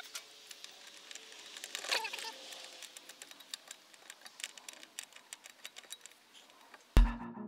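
Scattered small clicks and taps of plastic and metal side-mirror parts being handled and fitted back together. Electronic music with a beat starts abruptly near the end and is the loudest sound.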